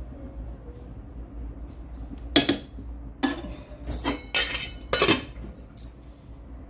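Metal spatula and aluminium lid knocking against an aluminium cooking pot: a few sharp metallic clanks with short ringing, the loudest about two and a half seconds in and again near five seconds, over a low steady hum.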